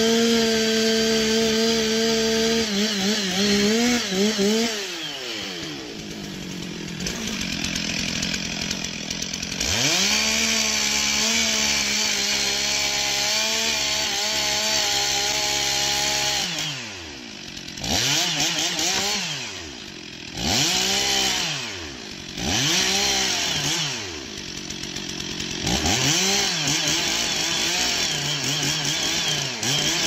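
Gas chainsaw cutting into the base of a large tree trunk, running at full throttle and sagging in pitch as it bites into the wood. In the second half the saw is revved up and down over and over, dropping back briefly between revs.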